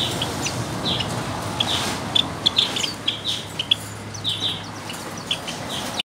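Caged flock of Java sparrows chirping: many short, sharp high calls, often several a second, over a steady low hum.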